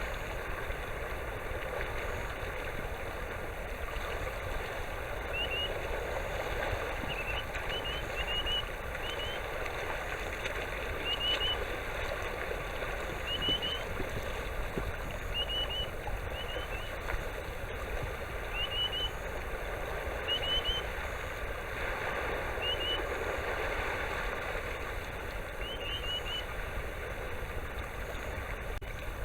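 A sandpiper calling 'tu-rui, rui, rui': short rising whistles in twos and threes, repeated every second or two over a steady rushing background. The uploader takes it for a grey-tailed tattler on northward migration.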